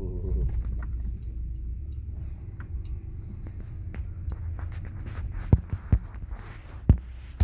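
Car's low engine and road rumble as it slows and pulls over, with a few sharp knocks near the end.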